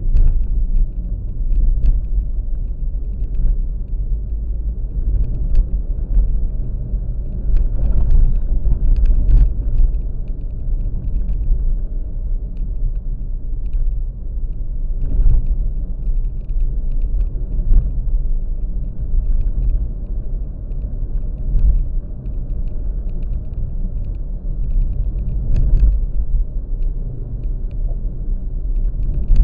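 Steady low rumble of a vehicle travelling on the road, with a few faint clicks and knocks.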